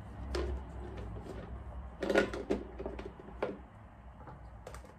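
Clear plastic food storage containers and their snap-on lids knocking and clattering as they are handled and stacked, with the loudest knocks about two seconds in.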